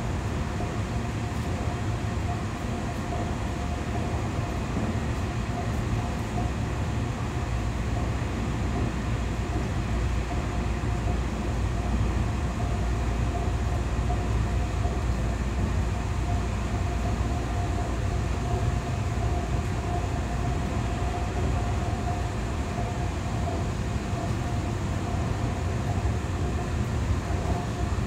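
Interior running noise of a Taiwan Railways EMU3000 electric multiple unit under way: a steady low rumble from the running gear, with a steady hum riding over it.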